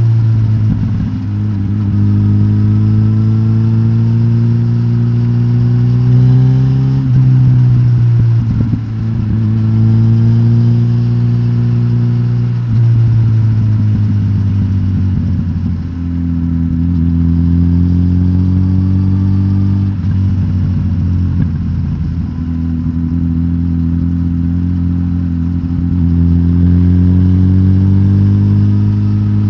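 Suzuki GSX-S1000GT's K5-derived inline-four engine running through a de-catted stock exhaust as the bike is ridden. The pitch climbs slowly and drops back several times.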